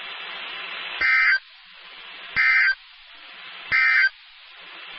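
NOAA Weather Radio Emergency Alert System end-of-message code: three short, identical bursts of digital data tone about a second and a half apart, over steady radio hiss. It signals the end of the warning broadcast.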